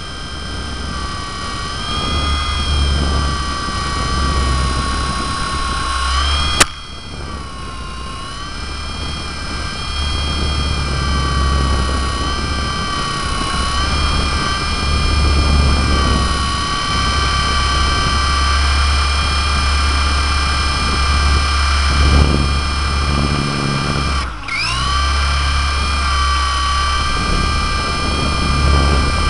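Electric motor and rotors of a Litehawk Aero RC helicopter heard from its onboard camera: a steady whine that wavers in pitch with the throttle, over a low rumble. A sharp knock comes about six and a half seconds in, and later the whine dips and drops in pitch for a moment before picking up again.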